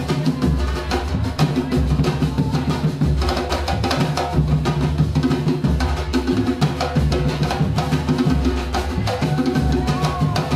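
A drum ensemble playing live: many drums struck together in a dense, driving rhythm with a heavy low beat.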